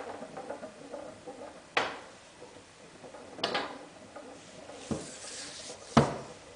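Meucci pool cue being rolled back and forth across a granite countertop to check whether it is straight: a faint rolling rattle with four sharp knocks, the loudest about six seconds in.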